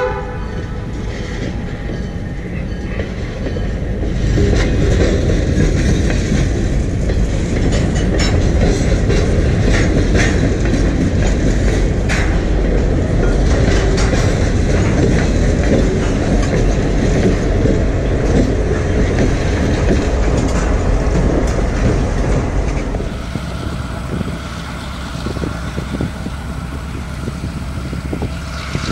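Freight train of covered hopper cars pushed by a diesel locomotive rolling across a road grade crossing: the diesel engine runs and the wheels clack over the rail joints, loudest from about four seconds in while the cars and locomotive pass. Shortly before the end it cuts to a quieter, more distant diesel freight train.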